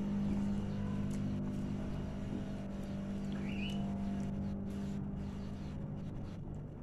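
A steady low mechanical hum, like a motor running, with one short rising chirp about three seconds in.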